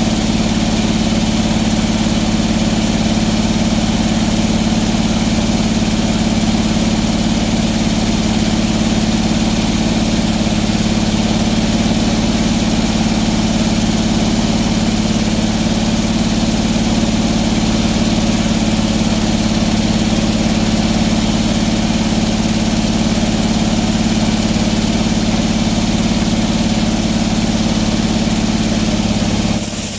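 Sawmill engine running steadily at a constant pitch, dropping off sharply near the end as it throttles down.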